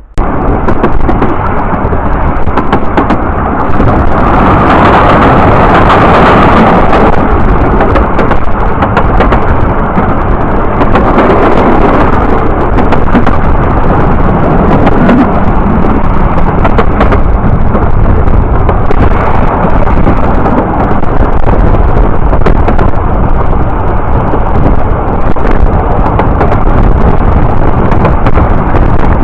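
Loud, steady wind buffeting the microphone over the rumble of a moving train, with frequent crackles. It starts abruptly.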